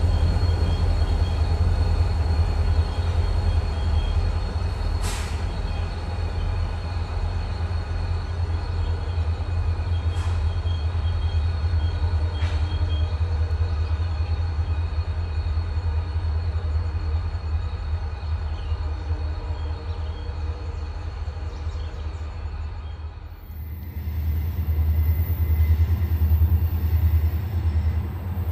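EMD diesel-electric locomotives working hard in notch 8 on a freight train: a loud, steady, deep engine drone with a few sharp metallic clicks. The sound dips and breaks off about 23 seconds in, then resumes just as heavy.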